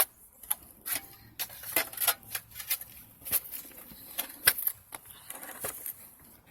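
Shovel digging in soil beside a drain pipe: a run of irregular scrapes and clinks, roughly two a second.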